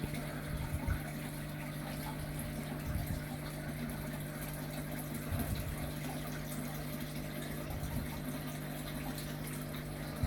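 Steady low hum with one constant low tone and a faint hiss, broken by a few soft knocks.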